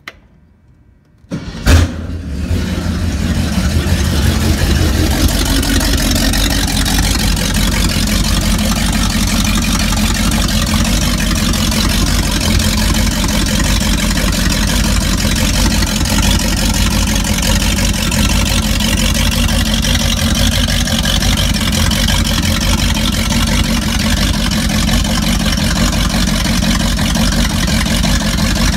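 The stern-drive engine of a 1977 Glastron CVX-20 boat, cold on its trailer, starts after a click and a brief crank about a second and a half in, catching at once. It then runs steadily with a deep rumble, with a hiss as its cooling water sprays out of the hose-fed outdrive.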